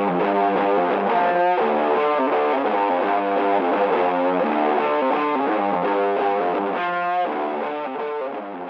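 Intro music: a distorted electric guitar playing a riff over a steady beat, fading near the end.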